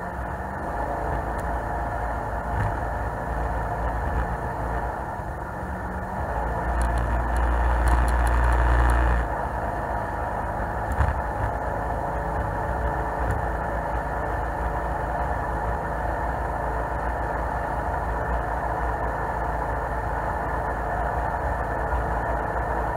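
Jet boat under way, its engine and water jet running steadily along with water rushing against the hull. It swells louder for a couple of seconds about seven seconds in, and there is a single sharp knock about eleven seconds in.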